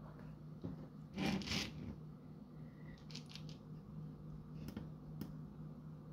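Handling noise from an RC tank's electronics board and its wiring: a brief rustle about a second in, then a few small clicks, the last two sharp, near the end, while a button on the board is held down and the power is switched on. A steady low hum runs underneath.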